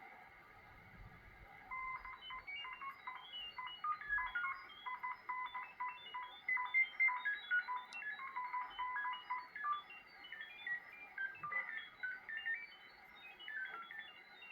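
Shortwave radio receiving a burst of rapid beeping tones over a steady hiss. Short tones follow one another several times a second, jumping between different pitches, sometimes two together; the tones start about two seconds in and stop near the end. It is a melodic-sounding signal that the uploader takes for possible data.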